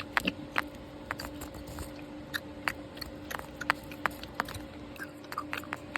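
Irregular small clicks and ticks, a few a second, over a steady low hum.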